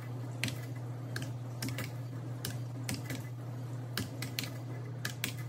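Buttons of a plastic desktop calculator pressed one after another, about a dozen irregular clicks as figures are keyed in to add them up, over a steady low hum.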